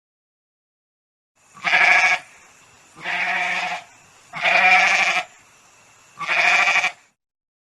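Goat bleating four times, each call a short wavering bleat with pauses between.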